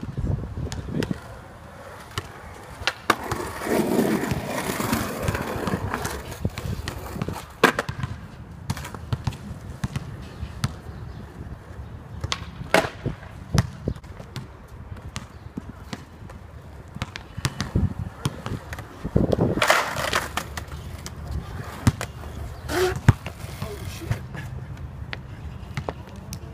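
Skateboard wheels rolling on a hard court, with several sharp clacks of the board striking the ground at scattered moments.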